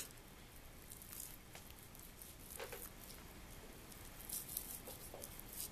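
Faint, soft squishing and small ticks of a kitchen knife cutting gristle away from a raw beef tenderloin on a wooden cutting board.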